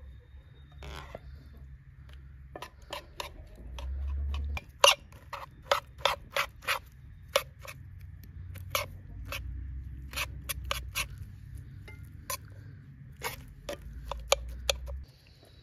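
Kitchen knife chopping soft roasted eggplant in a bowl, the blade knocking sharply on the bowl's bottom in quick, irregular strokes, about three a second at the busiest.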